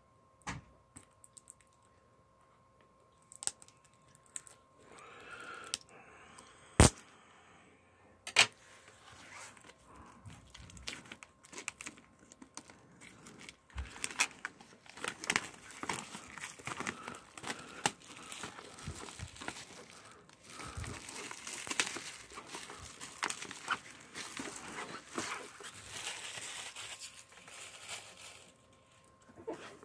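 Plastic shrink-wrap being slit and torn off a DVD box set, crinkling and crackling. A couple of sharp clicks come in the first third, and the crinkling turns loud and dense from about halfway through.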